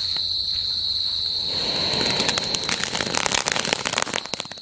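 Coronation-brand chitput firecracker going off: a hiss builds about a second and a half in, then about three seconds of rapid crackling pops that stop near the end.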